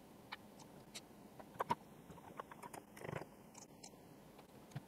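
Faint, scattered clicks of a computer mouse and keyboard, with a short quick run of clicks a little after three seconds in.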